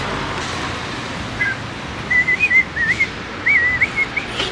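A person whistling a tune: a string of clear, high notes at much the same pitch with small slides up and down, starting about a second and a half in.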